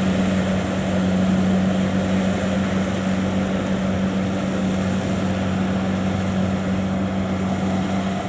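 Kubota DC70 Plus combine harvester's diesel engine running steadily, a constant low hum with no change in pitch.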